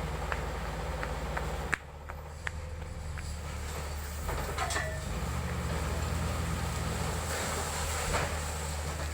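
Diesel engine of a piece of heavy road equipment running steadily, with scattered clicks and knocks on top. The sound changes abruptly about two seconds in.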